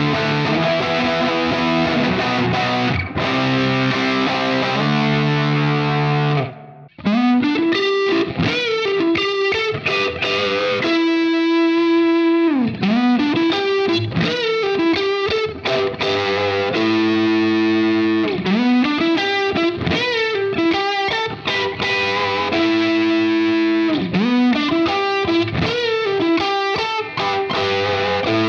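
James Tyler Japan Studio Elite HD electric guitar played with heavy overdrive. It opens with sustained chords of a riff, stops briefly about six seconds in, then moves into single-note lead licks with string bends and long held notes.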